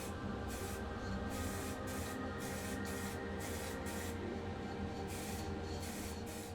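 Spray paint hissing in repeated short bursts with brief pauses, laying the colour coat on a small diecast car body, over a steady low hum.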